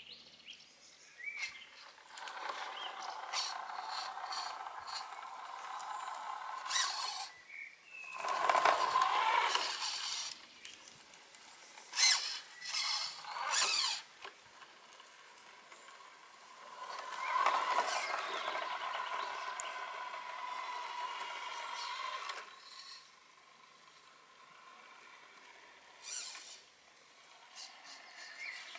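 1:14 scale RC MAN tipper truck driving on concrete paving: its electric motor and gearbox whine in several runs, swelling and fading as it speeds up and slows, loudest about eight seconds in and again from about seventeen to twenty-two seconds. Scattered sharp clicks come along with the drive.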